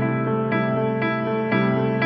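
Background music: a soft, slow instrumental piece, its notes changing about twice a second.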